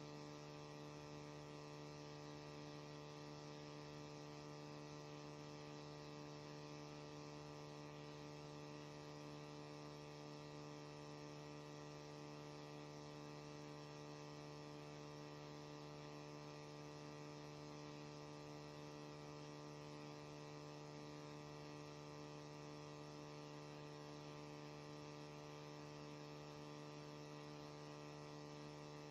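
Faint, steady electrical hum with a buzzy stack of overtones, unchanging throughout.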